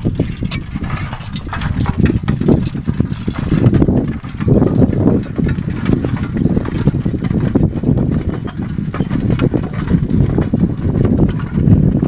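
Team of Brabant draft horses walking in harness, pulling a riding two-way plow through heavy soil: a steady run of hoofbeats, with clinks from the harness and trace chains.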